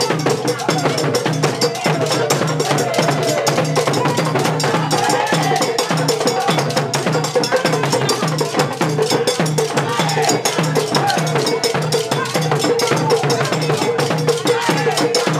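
Traditional Ghanaian percussion: sticks and bell-like metal percussion struck in a fast, dense rhythm, with a group of women's voices singing over it.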